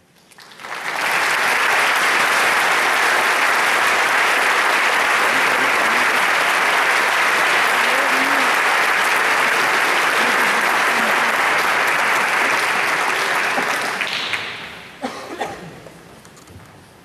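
Concert-hall audience applauding steadily, fading out about fourteen seconds in, with a few last scattered claps.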